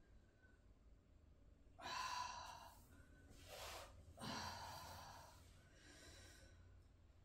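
A woman breathing slowly and audibly while stretching: a sighing exhale about two seconds in, a short breath after it, then a longer exhale.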